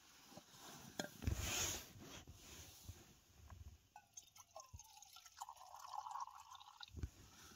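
Liquid poured from a vacuum flask into a mug: a faint trickle whose pitch slides upward in places, starting about four seconds in. Before it, about a second in, there is a brief rustle.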